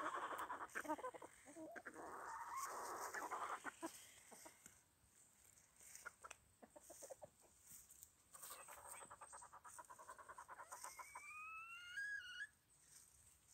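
Bantam chickens clucking and calling softly, with scattered rustling and clicks in dry leaves. Near the end one call rises in pitch.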